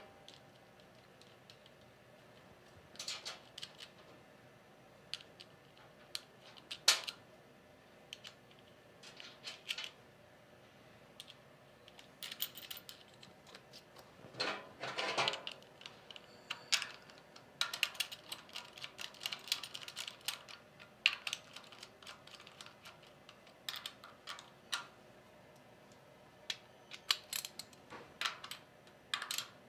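Scattered small metallic clicks and clinks, singly and in short clusters, of nuts and copper jumper bars being handled and fitted by hand onto the brass terminal studs of a compressor's terminal plate.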